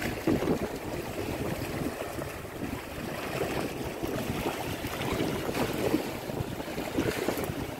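Wind buffeting the microphone over water rushing and splashing along the hull of a small sailboat under way in choppy sea.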